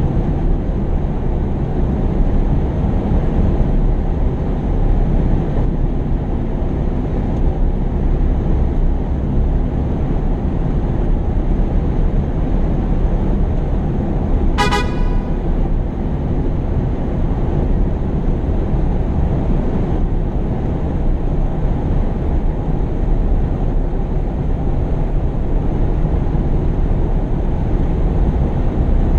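Steady low rumbling noise, with one short horn-like beep about halfway through.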